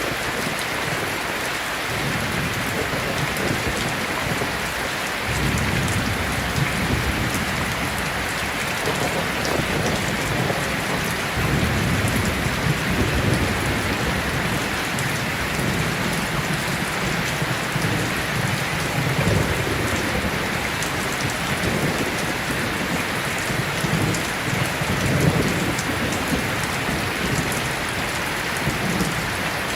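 Steady heavy rain falling, with low rolling thunder rumbling in repeated swells from about five seconds in.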